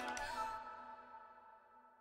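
Background music ending: its last notes ring on and fade away to silence.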